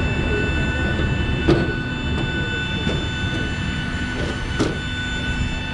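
Steady low rumble with a high, even whine from jet aircraft on the apron, beside a Boeing 737 MAX 8. Footsteps clank on the metal airstair treads four or five times.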